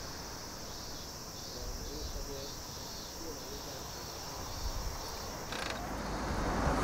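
Outdoor ambience with a low wind rumble on the microphone and a few faint short calls. Near the end, a click and rising rustling handling noise from the motorcycle being readied.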